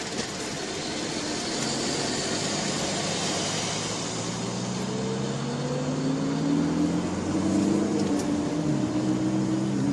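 Engine and road noise inside a moving car's cabin. The engine note climbs slowly from about halfway through, then drops about a second before the end.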